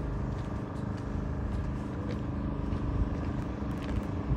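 A motor running steadily with a constant hum over low rumble.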